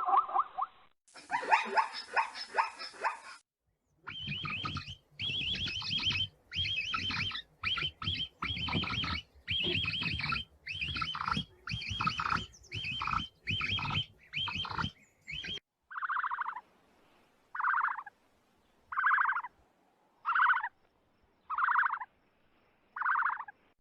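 Animal calls from several short clips in succession. First comes a rapid, irregular run of repeated cries, then a series of about seven short calls evenly spaced a little over a second apart.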